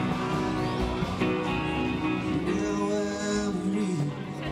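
Live band playing an instrumental stretch led by guitar, with a country-rock feel, heard through a handheld camera's built-in microphone.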